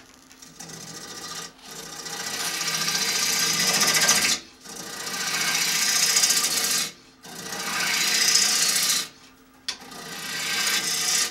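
Lathe gouge cutting into a spinning wooden bowl blank: a run of about five passes, each building to a loud hiss of shavings and breaking off suddenly, with short pauses between them.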